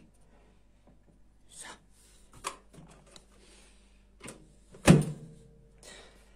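A few light knocks and rustles of handling, then a microwave oven door being shut with one loud thunk about five seconds in.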